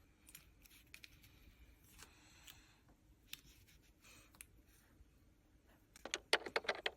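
Small hard objects being handled at close range: scattered light clicks and a brief soft rustle, then a quick run of sharp clicks and clacks near the end, the loudest part.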